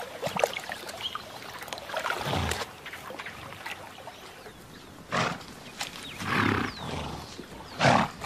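Four short, breathy blasts of air from an animal, a second or more apart, the last the loudest, with faint bird chirps behind.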